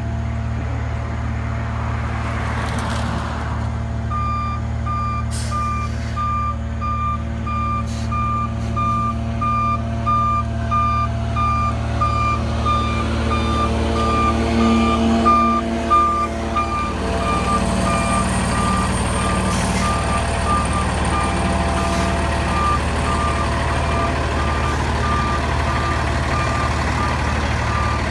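Road-patching truck's engine running steadily, with its reversing alarm beeping about twice a second from about four seconds in. A louder rush of machine noise comes briefly midway.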